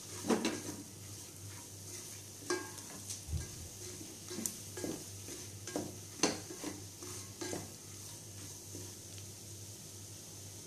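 Wooden spatula stirring and scraping onion-and-spice masala in a pressure cooker, with irregular knocks against the pot over a faint steady sizzle. The knocks die away about three-quarters of the way through, leaving the sizzle.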